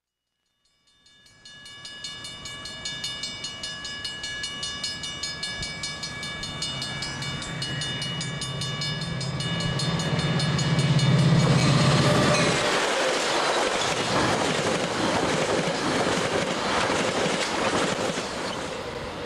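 Grade-crossing bell ringing in a steady rhythm as a Metra diesel-hauled commuter train approaches. The locomotive's low steady sound builds and cuts off about two-thirds of the way through. Then comes the loud rushing rumble of bilevel passenger cars passing close by on the rails.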